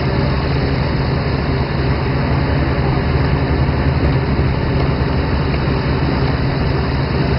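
Fishing boat's engine running steadily, a low drone under an even rushing noise.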